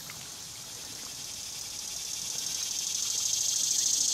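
A chorus of insects buzzing: a steady, high-pitched hum that grows louder toward the end.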